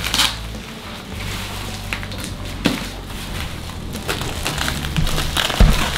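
Cardboard box and packing material being handled and pulled apart during unboxing, with scattered crunches and scrapes over a low steady hum.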